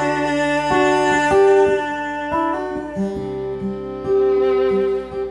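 Folk music on acoustic guitar and fiddle, with the fiddle holding long bowed notes over plucked guitar.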